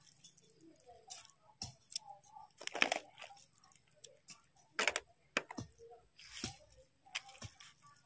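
Close-up eating sounds: irregular smacks and clicks of a mouth chewing stir-fried noodles, with a couple of slightly longer smacking noises about three seconds in and again near six and a half seconds.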